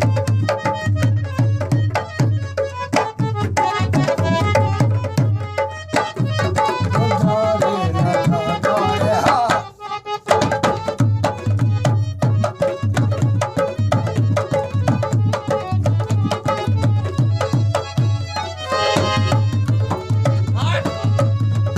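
Tabla and harmonium playing a lively rhythmic piece: fast tabla strokes over a pulsing deep bass drum, with harmonium melody held above. The playing breaks off briefly about ten seconds in, then resumes.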